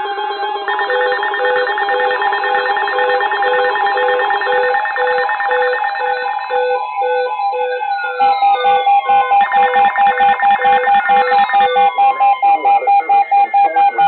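Several weather alert radios and alarm devices sounding at once for a severe thunderstorm warning: overlapping steady tones and repeating beeps. About eight seconds in, a faster, louder beeping starts, and a few falling whistle-like sweeps come in.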